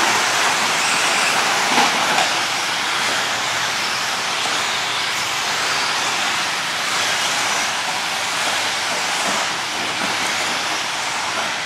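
Steady rushing noise of a pack of electric 17.5-turn 2wd RC buggies racing on a dirt track: brushless motors whining and tyres running over the dirt. A couple of light knocks come about two seconds in.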